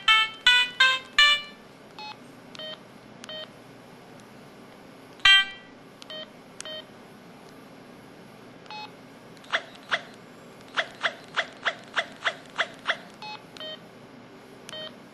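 Built-in sound effects of an HS5000 mobile phone playing through its small speaker: short synthesized beeps and blips. A quick run of tones opens, single blips and one loud short burst follow about five seconds in, and a fast train of about ten beeps comes between about ten and thirteen seconds.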